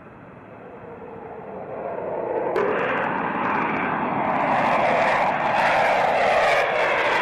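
Jet noise from F-22 Raptor fighters' Pratt & Whitney F119 turbofans. It swells as a Raptor climbs away, then jumps sharply louder about two and a half seconds in as a pair of Raptors passes low overhead, growing louder still before cutting off abruptly at the end.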